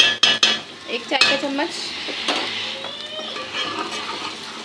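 Ginger-garlic paste being added to browned onion frying in hot ghee. A spoon knocks a few times on the pot, then the mixture sizzles steadily as it is stirred.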